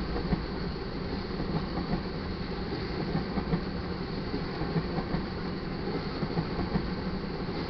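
Freight train of crude oil tank cars rolling past: a steady rumble of steel wheels on rail with frequent, irregular sharp clacks.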